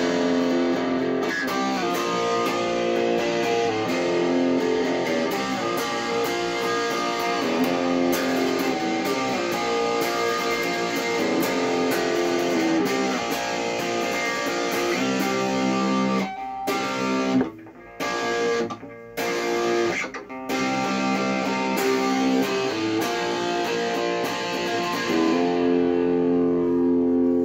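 Epiphone ES-333 semi-hollow electric guitar being strummed in a continuous chord riff, with a few short breaks about two-thirds of the way through.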